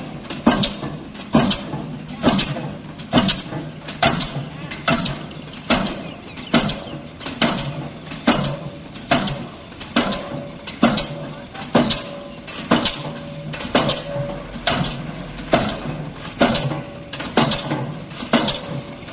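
Heavy strikes repeating evenly, about one a second, each with a short ring, over a steady machine hum.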